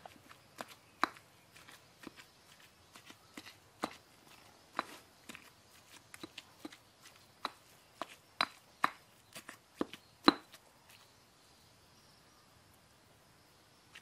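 Stone pestle pounding a wet chilli paste in a stone mortar: irregular knocks, about one or two a second. The loudest knock comes about ten seconds in, then the pounding stops for the last few seconds.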